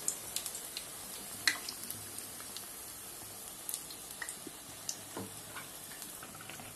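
Bread fingers in gram-flour batter deep-frying in hot oil: a steady sizzle with scattered sharp pops and crackles.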